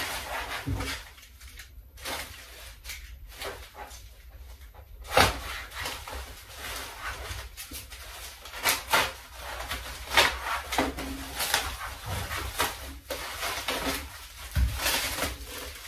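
Rustling of packaging and light knocks and clatter of model-aircraft kit parts being unpacked and handled on a workbench, with one sharper knock about five seconds in.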